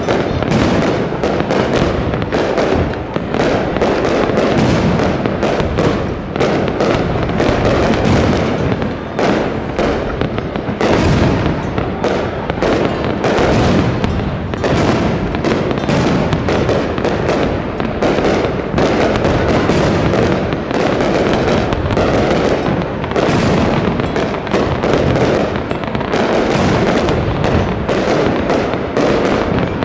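Aerial fireworks display: a dense, unbroken barrage of shell bursts and crackle, many bangs a second with no pause.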